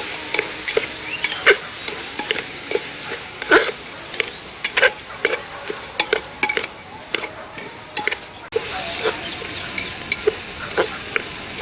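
Rice being stir-fried with vegetables and spices in an open pressure cooker: a steady sizzle with irregular scrapes and taps of the stirring spoon against the pot. The sizzle grows suddenly louder about two-thirds of the way through.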